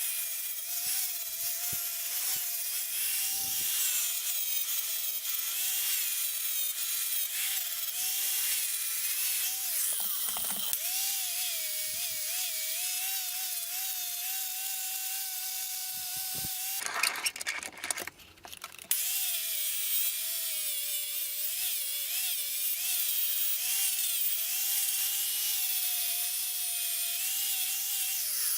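An electric power tool runs on the work, its motor whine wavering and dipping as it is pressed against the piece, over a high, gritty hiss. About two-thirds of the way through it breaks off briefly with some knocks, then runs again.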